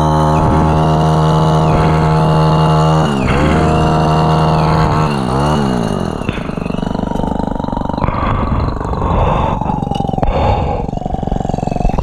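Pole hedge trimmer running at full speed. Its pitch dips and climbs back twice as the throttle is eased off and squeezed again, then it slows to a lower, rougher sound about six seconds in.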